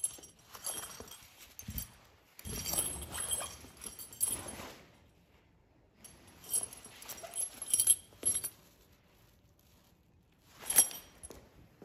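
A fabric bag rustling as it is handled, with the metal zipper sliders and pulls clinking, in four bursts with quiet pauses between.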